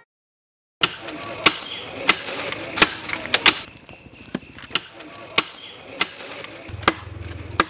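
A machete (parang) chopping into bamboo stalks: a series of about ten sharp, hard strikes at an uneven pace, roughly one every half second to a second, starting about a second in.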